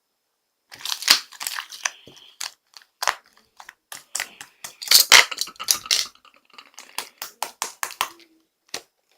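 Close-up crunching and crinkling: a quick, irregular run of sharp crackles that starts after a brief silence and thins out near the end.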